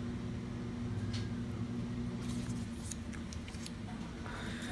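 Cardstock die cuts handled and laid down on a wooden table: a few soft rustles and light taps, over a steady low hum.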